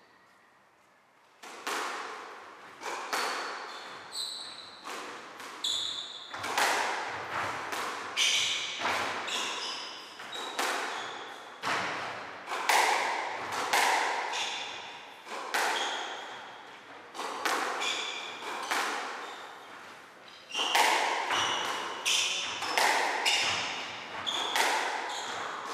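Squash rally: the ball knocking sharply off rackets, walls and floor, about one or two hits a second, each echoing in the court, mixed with short high squeaks of court shoes on the wooden floor. The hits begin after about a second and a half of quiet.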